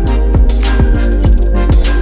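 Electronic background music with a steady kick-drum beat about twice a second.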